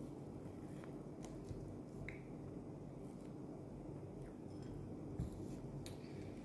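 Quiet eating at a table: white Arabic flatbread torn by hand and chewed, with a few light clicks and a dull knock about five seconds in, over a steady low hum.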